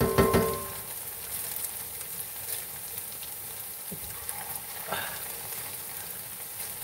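Churro batter pieces deep-frying in hot oil in a cast-iron skillet: a steady sizzle. A short louder sound right at the start and a couple of short clicks near the middle.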